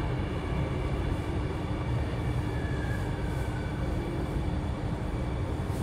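Cabin noise of a C830C Alstom Metropolis metro train slowing into a station: a steady rumble from the wheels and running gear with a constant hum, and a faint falling whine about two to three seconds in.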